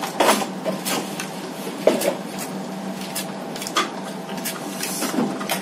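Light taps and clicks of paper cupcake liners and silicone muffin moulds being handled and set down on a metal baking tray, a few separate knocks over several seconds, over a steady low hum.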